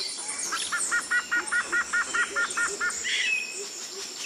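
Forest birds calling: one gives a quick run of about a dozen evenly spaced notes, about five a second, with other short chirps around it, over a steady high insect whine.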